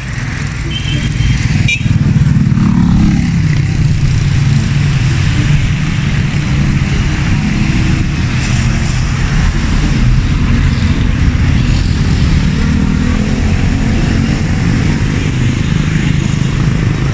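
Street traffic: cars and motorcycles running past close by, a loud, steady rumble.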